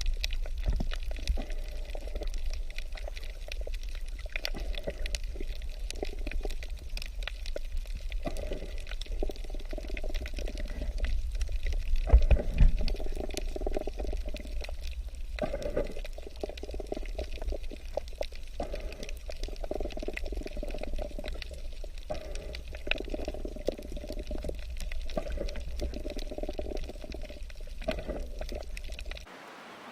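Water sounds, bubbling and pouring, full of small clicks over a steady low rumble, cutting off abruptly near the end.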